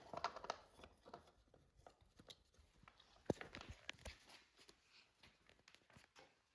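Near silence with scattered faint clicks and light knocks, a few in the first half second and a couple more near the middle, from metal and plastic parts being handled.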